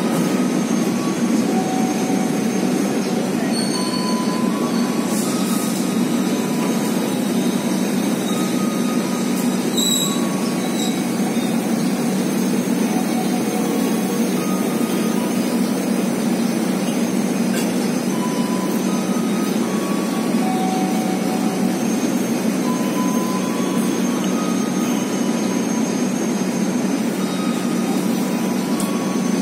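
Passenger coaches of the KA Taksaka train rolling slowly past on the rails, making a steady, even rumble. Short, thin wheel squeals come and go throughout.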